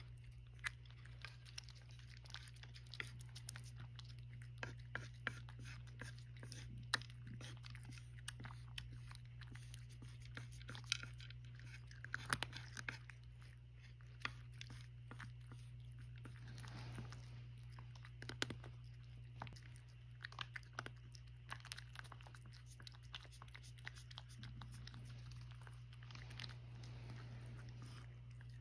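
A cat crunching dry kibble: a quiet, irregular run of small crunches and clicks, with a spoon tapping and scraping on a wooden tray, over a low steady hum.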